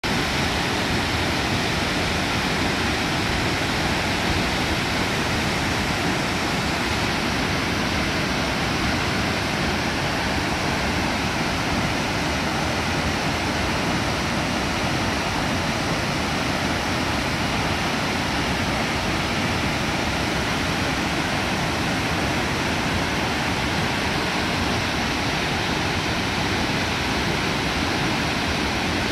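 Steady roar of a large waterfall plunging into a gorge, heard as continuous, even rushing water with no letup.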